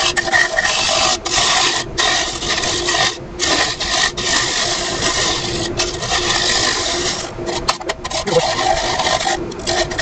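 A scraper cutting the inside of an ashe juniper vase spinning on a wood lathe: a steady hiss of wood being shaved, broken by several short gaps, over a steady motor hum.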